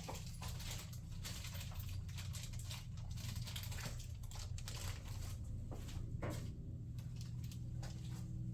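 Faint scattered clicks and rustling of plastic push-pin trim clips and panels being handled and pried, over a steady low hum.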